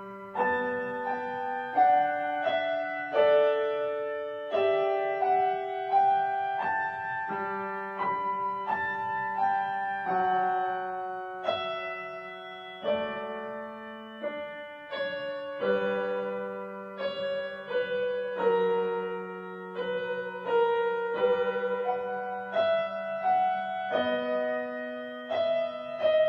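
Piano music: a gentle melody of single notes over held lower notes, each note striking and then fading.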